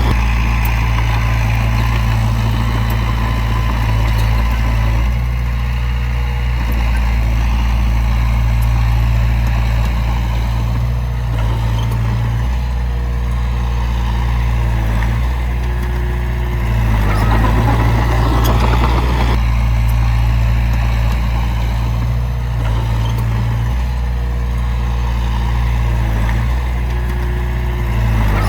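Heavy diesel engine of earthmoving machinery running steadily, with its note changing as the load comes and goes; a brief rougher, louder stretch about two-thirds of the way through.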